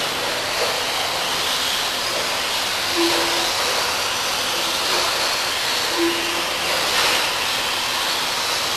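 A pack of radio-controlled stadium trucks racing, heard as a steady high whir and hiss of small electric motors and tyres on the track. A short low beep sounds about every three seconds.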